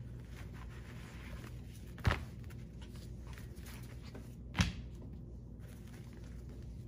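A puppy romping with a fleece rope toy on a carpeted floor: two sharp thumps about two and a half seconds apart, over a steady low hum.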